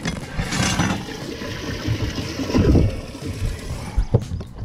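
Water sloshing and gurgling in a bass boat's livewell, with a louder splash-like slosh a little past halfway and two sharp knocks near the end.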